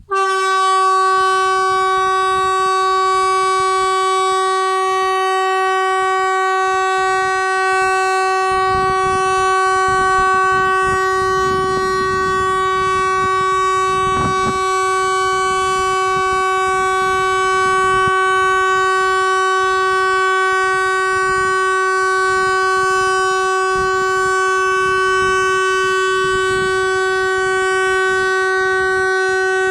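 Kockums Tyfon compressed-air civil-defence horn sounding one continuous blast of about 30 seconds. It is a single steady, very loud note rich in overtones that starts and stops abruptly. This is the 30-second continuous tone of the Swedish warning system's 'danger over' (all-clear) signal.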